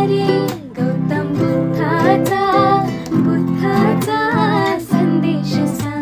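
Background music: a song, a voice singing a wavering melody over plucked guitar.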